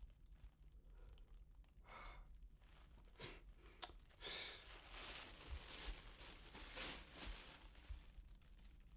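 Faint tearing and crinkling of thin sheeting as a hand pushes and rips through it, in scattered rustles that thicken after about four seconds.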